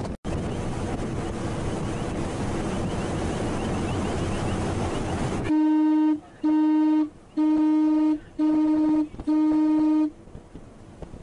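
Wind on the microphone and rushing water, then a ship's horn sounds five short, loud blasts in quick succession, each about half a second long. Five short blasts is the maritime danger signal to an approaching vessel.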